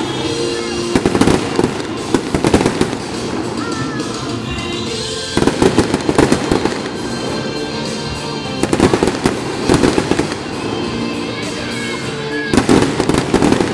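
Aerial fireworks display: clusters of bangs and crackling bursts come in about four volleys a few seconds apart, over steady background music.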